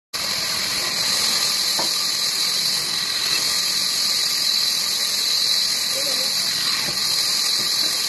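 Band saw blade cutting through a wooden block: a steady high-pitched hiss.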